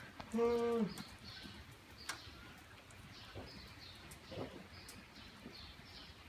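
Small birds chirping again and again in short high calls. About half a second in there is a brief, steady, flat-pitched hum, the loudest sound here.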